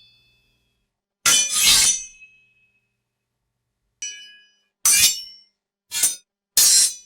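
A string of separate sword sound effects, each a short metallic blade clash or scrape set apart by silence. About a second in comes a double clash with a ringing tail, then a faint ringing clink, then three quick clashes near the end.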